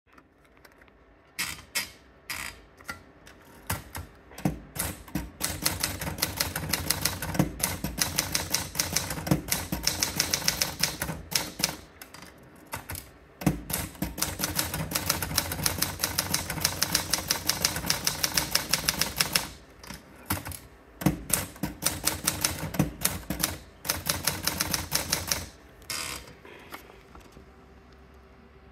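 Adler Gabriele 25 typewriter being typed on: rapid runs of keystrokes clacking against the platen, with a few short pauses, stopping near the end.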